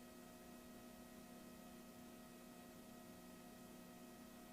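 Near silence: a faint steady electrical hum and hiss between police radio transmissions.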